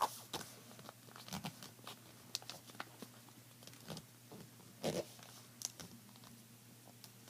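Sheet of copy paper being folded and creased by hand: scattered faint rustles and crinkles, with a louder crackle about five seconds in.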